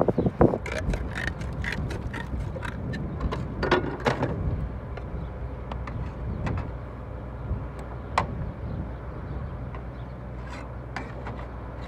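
Light clicks and knocks of roofing slates being handled and fitted onto a chimney face. The clicks come thick in the first few seconds and only now and then afterwards, over a steady low hum.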